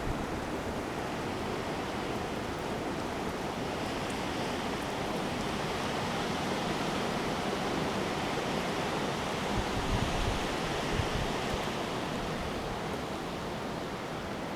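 Steady rushing noise of storm wind, with a few low gusts buffeting the microphone around ten seconds in.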